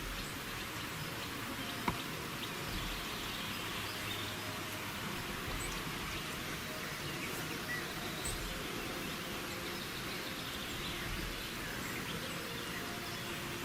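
Steady rushing of a mountain stream, with a few faint, scattered forest bird chirps over it.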